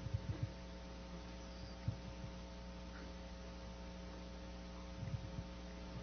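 Steady electrical mains hum in the sound system, with a few dull low thumps: a cluster near the start, one about two seconds in, and another cluster near the end.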